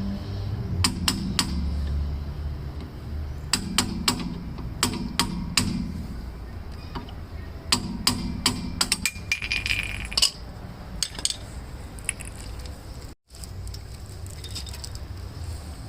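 Hand tools and small metal parts clinking and tapping while a car's rear wheel hub is put back together, in irregular sharp clinks, busiest towards the middle.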